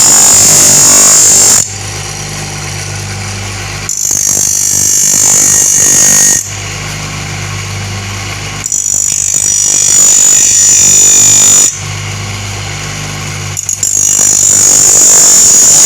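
Electric grinder running steadily while a wood cutter blade is pressed against the abrasive wheel in four passes of two to three seconds each. Each pass is a loud, high-pitched grind that cuts off sharply, leaving the motor hum between passes.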